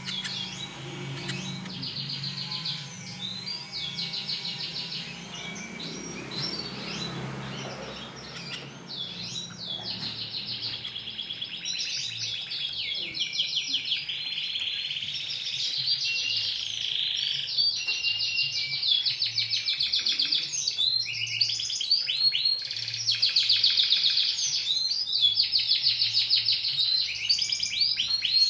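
Domestic canary singing: long rolling runs of rapid trills and chirps, one phrase after another, getting busier in the second half.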